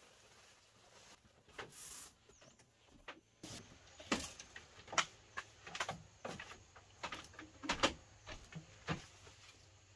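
Irregular knocks and clacks of bamboo, several a second, starting about three and a half seconds in, after a brief rustle near two seconds.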